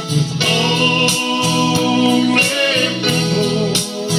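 A man singing a slow song, accompanied by his own electronic keyboard playing sustained chords over a repeating bass line and a steady light beat.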